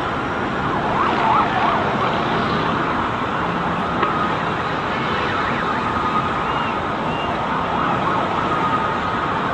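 Emergency vehicle sirens wailing over a steady wash of street and traffic noise.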